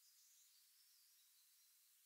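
Near silence: faint outdoor woodland ambience with very faint, distant bird chirps.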